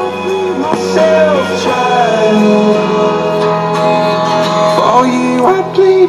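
Music with singing and guitar playing from a Zenith clock radio's loudspeaker as it is demonstrated working.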